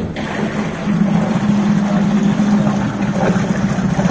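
Suzuki DF 9.9BS two-cylinder four-stroke outboard running at low revs with its leg in a test barrel of water, just shifted into forward gear through the new remote throttle-and-shift cables; the steady engine note grows louder about a second in as the propeller takes up load.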